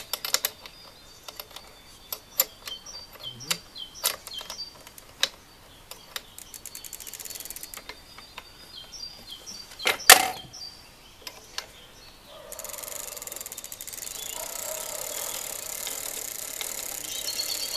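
Metal clicks and taps of a pedal wrench and pedal while the right pedal is threaded into the crank arm of a Giant XtC Jr. 20" kids' mountain bike, with one sharp knock about ten seconds in. For the last five seconds a fast, even ticking follows, the rear freewheel's pawls ratcheting as the crank is turned backward to tighten the pedal.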